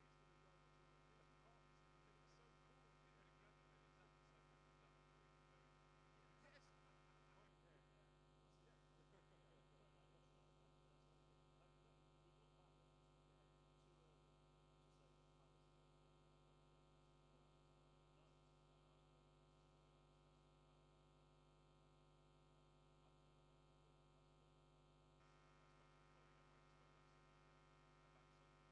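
Near silence: only a faint, steady electrical hum on a dead broadcast audio feed. The outside broadcast's sound has been lost.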